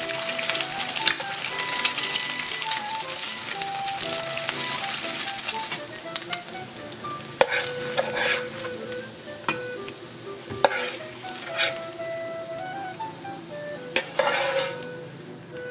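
Eggs frying in a nonstick pan, sizzling steadily, over light background music. After about six seconds the sizzle fades, and a few sharp clicks of the metal turner against the pan follow as the eggs are slid onto the noodles.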